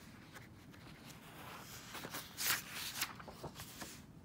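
Paper pages of a paperback coloring book being turned by hand: a rustling with several sharp crackles of the paper, loudest about two and a half seconds in, dying away just before the end.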